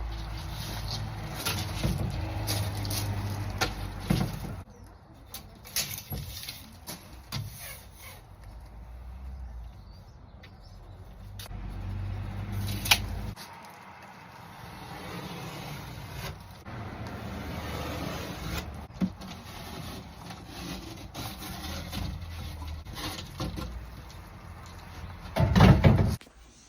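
Knocks, taps and scrapes of plasterboard being cut and handled, over a low rumble that comes and goes, with a louder thump and rustle near the end.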